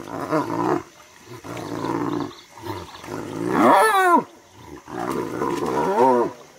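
Spotted hyenas calling while they fight: a series of harsh low calls, with a loud call that rises and falls in pitch about four seconds in and a shorter rising call near the end.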